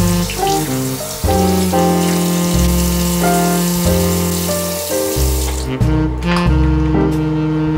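Water running from a bathroom sink tap, shut off about five and a half seconds in, under background music.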